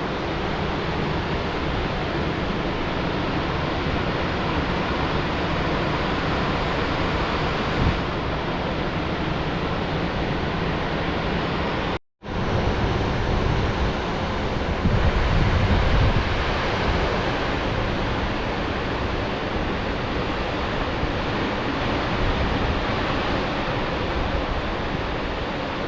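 Dettifoss waterfall's steady, heavy rush of falling water, with wind rumbling on the microphone. The sound cuts out for a moment about twelve seconds in.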